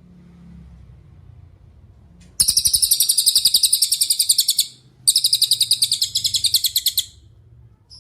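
Cililin bird singing two long, high-pitched, rapidly pulsing trills, each about two seconds, with a short break between them.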